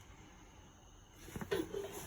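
Quiet at first, then about a second in, a few knocks and clatter of discarded household items being moved around while rummaging in a dumpster.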